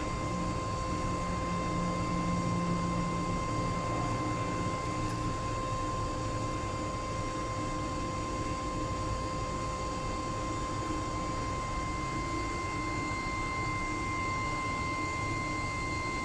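Steady mechanical hum and hiss with a constant high-pitched whine; a lower drone underneath fades out a few seconds in.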